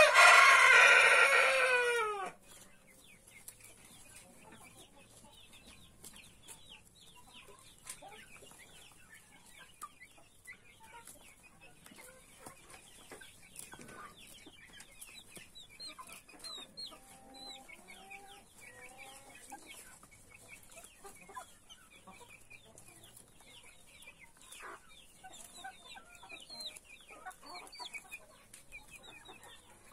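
A rooster crows once at the start, loud and about two seconds long, its pitch falling at the end. Afterwards chickens cluck softly, with many short, high chirps.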